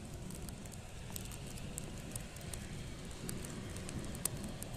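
Distant rumble of an ATR 72 turboprop airliner rolling out on the runway after landing, with frequent sharp crackling clicks over it.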